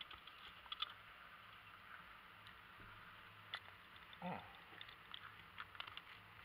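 Near silence in a car interior, with faint clicks and rubbing from a handheld camera being handled. About four seconds in there is one short creak that falls in pitch.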